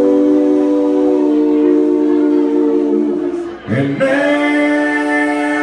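Live country band music with singing and long held notes: the held chord shifts about a second in and again near three seconds, breaks off briefly, and a new held chord starts about four seconds in.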